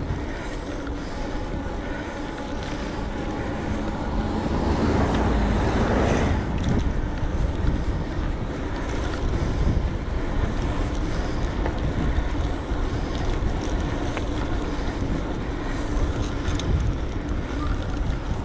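Wind rushing over an action camera's microphone and tyre noise from an electric bike riding along a road, with a faint steady hum. The rush swells louder about five seconds in, then settles back.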